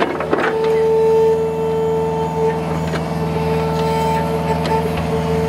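Excavator's diesel engine running steadily while its bucket digs in a deep hole, with a strong steady drone and a few scraping knocks about half a second in.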